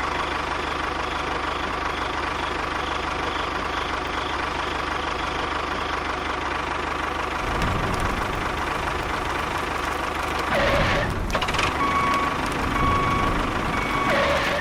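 Small engine or motor running steadily with a constant whine. A heavier low rumble joins about halfway through, and a few short repeated tones come near the end.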